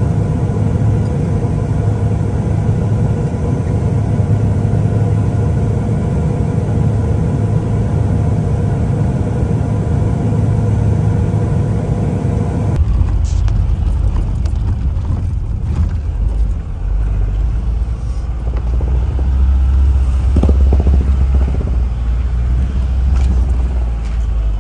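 A vehicle engine running steadily with a droning hum. About halfway through it cuts abruptly to a lower, rougher rumble with a few light knocks.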